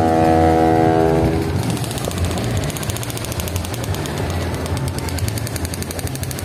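A steady horn-like chord that stops about a second in, then a fast, even mechanical rattle over a continuous low engine drone, amid night-market ride machinery.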